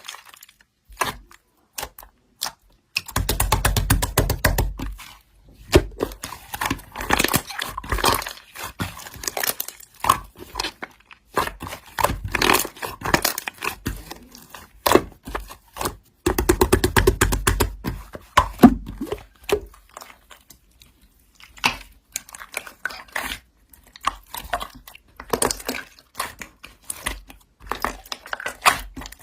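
Slime being squeezed and pulled by hand: a steady run of sticky crackles, pops and tearing sounds, with two longer, deeper squishes about 3 seconds in and about halfway through.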